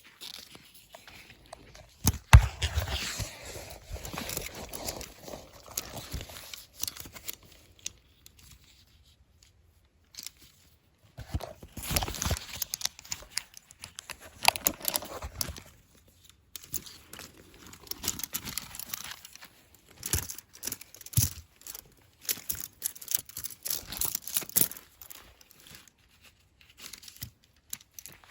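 Irregular rustling and crunching in clusters of bursts, with a quiet pause of a few seconds about eight seconds in.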